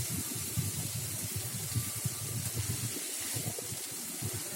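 Small mourala fish frying in hot mustard oil in a kadai over a high flame: a steady sizzling hiss.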